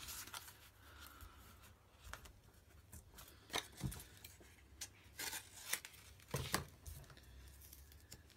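Cards and paper being handled on a tabletop: quiet rustling with a handful of short, sharp clicks and taps, most of them in the middle.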